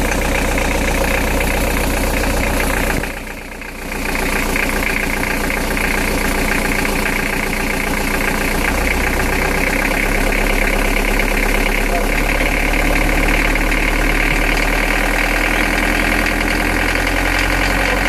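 Nanni turbo diesel marine engine, Toyota-based, running steadily with a knock. The owner traced the knock to injectors that needed refurbishing and valve clearances that were slightly out.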